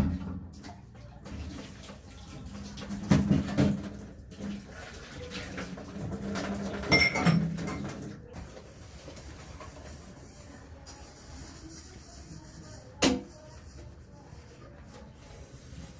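Dishes and pots being handled and washed by hand, clattering a few times, with one sharp knock late on.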